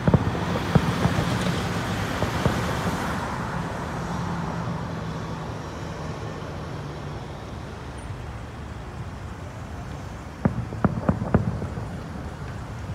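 Road traffic passing, its steady hum fading away over the first several seconds. About ten and a half seconds in comes a quick cluster of sharp bangs from distant aerial fireworks bursting.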